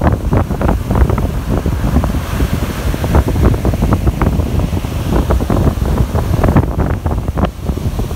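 Wind buffeting the microphone in loud, uneven gusts over the hiss of ocean surf breaking and washing up the beach.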